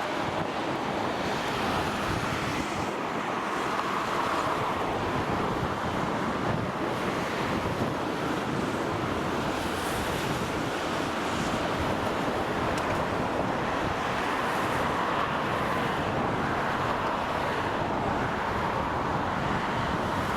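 Steady rushing of the swollen Tama River's floodwater, swelling and easing slowly, with wind rumbling on the microphone.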